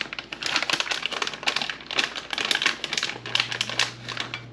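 Plastic bag of shredded cheese crinkling rapidly as it is shaken out over a casserole dish.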